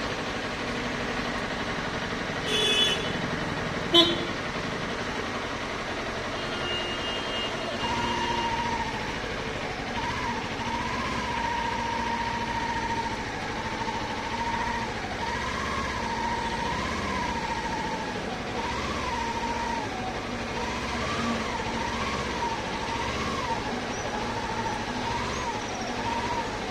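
Steady engine and street-traffic noise on a Kawasaki Ninja 400 crawling through congested town traffic. A vehicle horn honks briefly about three seconds in, and a sharper, louder beep follows a second later. For most of the rest a single wavering tone keeps rising and falling over the traffic noise.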